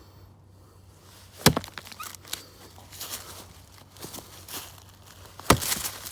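Bushcraft axe chopping into a log twice, two sharp blows about four seconds apart, with quieter knocks and rustling in between.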